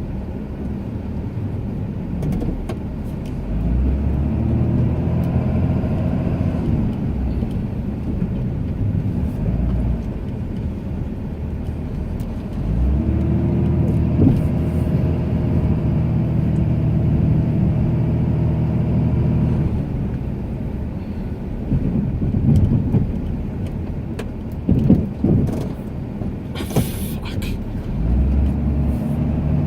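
Ram 2500 pickup's engine working under load while plowing snow, swelling in two long pushes and easing off between them, with a few short knocks later on.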